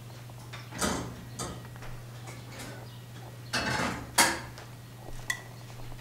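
Hands rolling a thin, freshly baked waffle-cone wafer around a plastic cone form: a few short rustling, scraping strokes, the longest and loudest a little past halfway, over a steady low hum.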